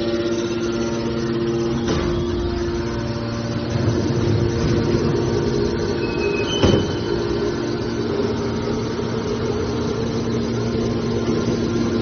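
Hydraulic baler's power unit, an electric motor driving a hydraulic pump, running with a steady hum. A knock comes about two seconds in, and a louder metallic clunk just before the middle, preceded by two brief high-pitched tones.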